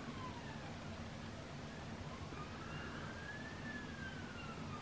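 A faint wailing siren, its pitch sliding down at the start, then rising slowly from about halfway and falling again near the end, over a steady low hum.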